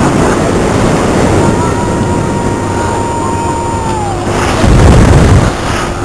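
Wind rushing and buffeting over the microphone as the Mondial Turbine ride swings the camera through the air, with a thin steady tone in the background; a heavier gust of wind about four and a half seconds in.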